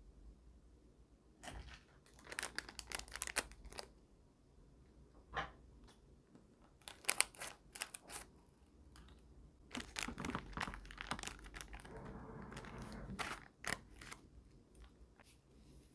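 Plastic candy-kit packaging being handled, crinkling and tearing in several short bursts, with softer rustling near the end.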